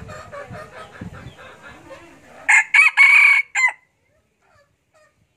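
Junglefowl-type rooster clucking in a quick run of soft notes, then crowing once about two and a half seconds in: a loud, short crow of just over a second, broken into a few parts.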